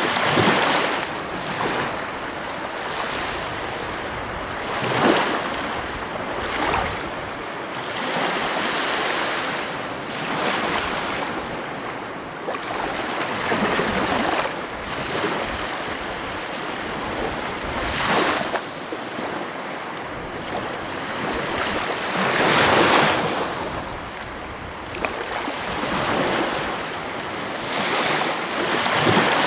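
Heavy ocean waves breaking on the coast: continuous surf wash with louder breakers surging in every few seconds.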